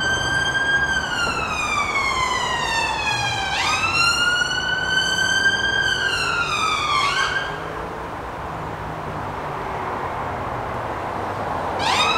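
Emergency vehicle siren wailing: the pitch slides slowly down, jumps back up and slides down again, then stops about seven seconds in and starts once more near the end.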